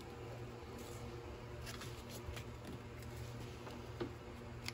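Faint steady electrical hum, with soft rustles and small clicks as a pistol-grip soldering gun and a tube of solder are handled at a wire splice; the sharpest click comes about four seconds in.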